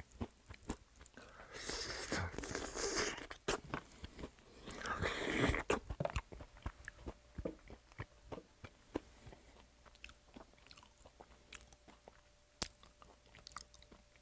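Close-up chewing of crispy fried chicken with skin, with many short wet mouth clicks and crunches. There are two louder, hissy stretches about two and five seconds in, and softer chewing clicks after that.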